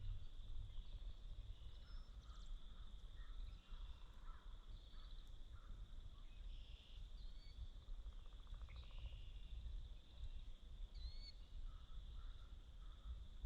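Faint woodland ambience: a steady high insect buzz with scattered bird chirps and calls, over a low rumble of wind.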